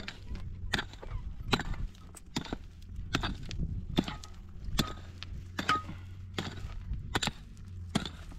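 Regular striking, one sharp blow a little more than once a second at a steady pace, as in chopping.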